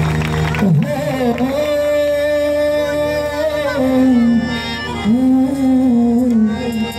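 Worship music: a voice singing long held notes that slide between pitches, over a steady accompaniment.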